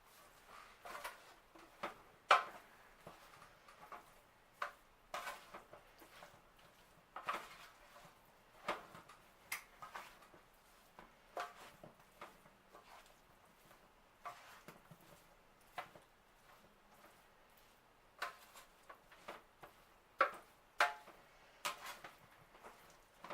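A utensil knocking and scraping against a pan while sausage, peppers and onions are stirred together, in irregular clicks and knocks about every second or two.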